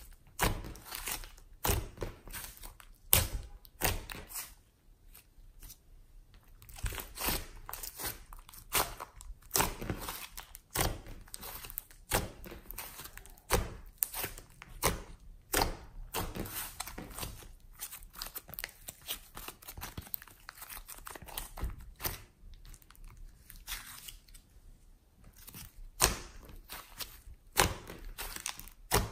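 Thick glossy slime with clay mixed in being squeezed, stretched and folded by hand, giving irregular sticky pops and crackles several times a second, with a couple of quieter pauses.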